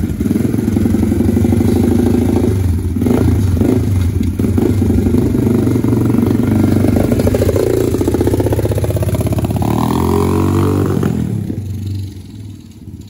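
Small-displacement 125cc pit bike engine running, blipped up and down in pitch a few times as the rider pulls away, then dropping off sharply near the end as it bogs with the choke off.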